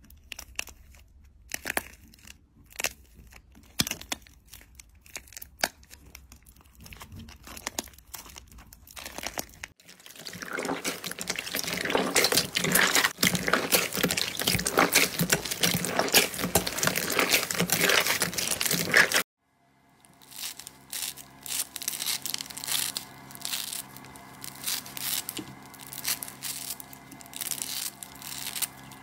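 Hands squeezing a crusted pink slime ring, giving sparse sharp crackles. About ten seconds in, this gives way to fluffy purple slime kneaded in a glass bowl, a dense, louder crackling that stops suddenly. Then scissors snip through a green sponge, separate crunchy cuts over a low steady hum.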